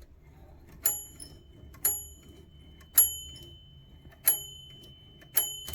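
The carriage bell of a Royal De Luxe typewriter dinging five times, about once a second, each strike a sharp metallic ding with a high ringing tail that fades.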